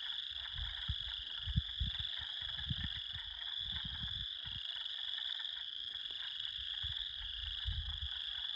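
A dense chorus of frogs calling in a continuous, high-pitched, unbroken drone, with gusts of wind buffeting the microphone.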